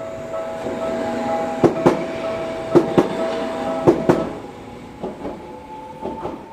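Two-car Setagaya Line 300-series tram passing over a level crossing, its wheels clacking over rail joints in pairs about a second apart, the clacks growing fainter as it moves away. The crossing alarm rings steadily and cuts off about four seconds in.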